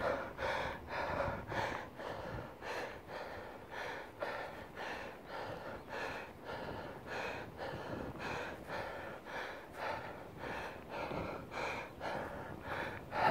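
A runner panting hard, about two quick breaths a second, while recovering from a 100 m sprint.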